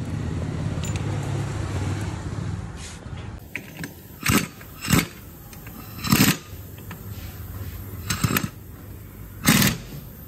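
Impact wrench hammering on the motorcycle's clutch hub nut in five short bursts, about a second or two apart, while a holding tool keeps the clutch from turning. A steady low hum comes first.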